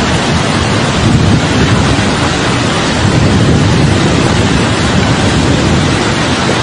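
Flash-flood torrent rushing past: a loud, steady wash of fast floodwater.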